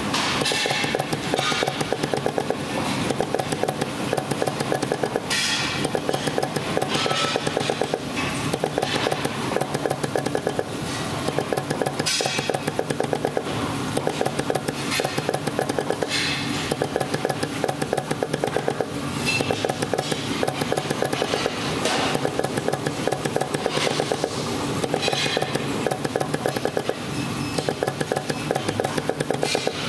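Soft PVC dispensing machine running: a steady rapid mechanical pulsing, with short hisses every few seconds as the dispensing heads work.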